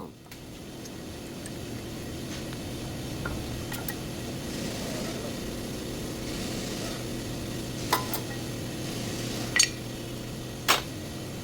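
Geely car running, a steady low hum with a rumble that slowly builds, broken by a few short sharp clicks in the second half.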